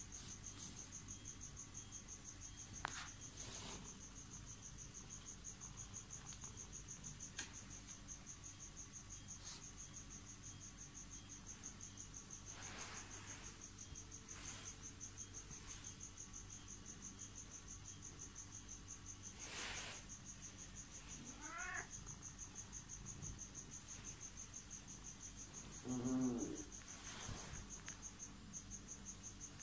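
An insect chirring in a steady, fast, high-pitched trill, with a few short rustles and a brief pitched call near the end.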